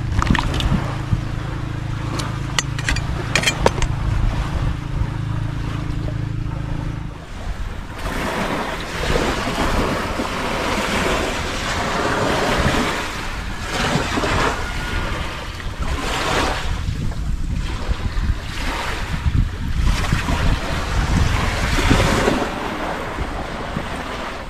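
Wind gusting on the microphone over the wash of surf, rising and falling unevenly. For the first seven seconds a steady low hum instead, with a few sharp clinks of a ladle against the metal wok.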